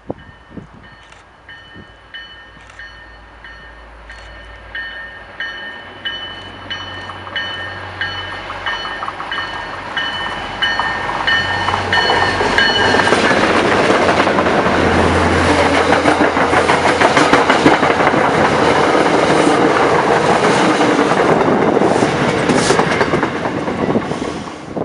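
MBTA commuter train approaching with its locomotive bell ringing steadily, a stroke about every 0.7 seconds, growing louder. About twelve seconds in it passes close by in a loud rush of wheel clatter over the rails, with a low diesel rumble underneath.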